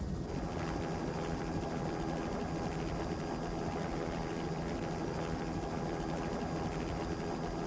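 An engine running steadily, its hum holding one pitch.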